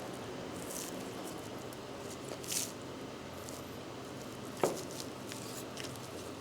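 Soft wet squishing and slicing of raw beef tenderloin as it is trimmed by hand with a knife, with a sharp click about four and a half seconds in.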